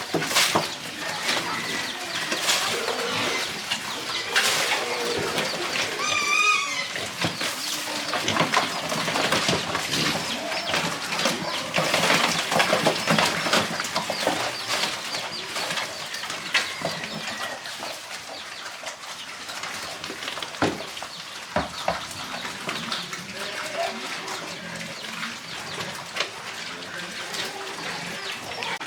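Farmyard animal sounds: chicken-like clucking and bird calls over many short clicks and rustles, with one wavering call about six seconds in. The sounds get somewhat quieter in the second half.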